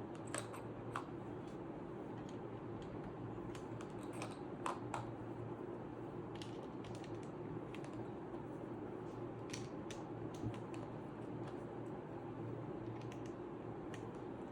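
Keycaps being pushed onto the switches of a Redragon K530 Pro mechanical keyboard, giving scattered, irregular plastic clicks, a few at a time with gaps between, over a steady low hum.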